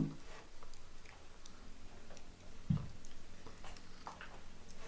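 Faint scattered ticks of picture cards being handled at a table, with one soft low thump about three seconds in.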